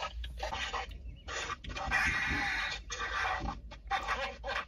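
A woman laughing in short cackling bursts, the longest about two seconds in.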